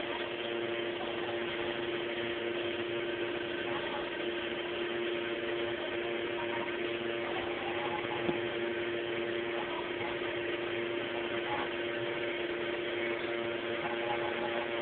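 Steady background hum with hiss, holding two even tones throughout, and a faint knock about eight seconds in.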